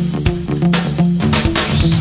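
Background music: a funky guitar-and-bass track with a steady beat.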